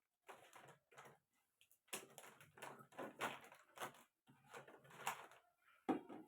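Plastic spice-powder packets rustling and crinkling as they are handled and moved about, in a string of short irregular bursts, with a sharper knock near the end.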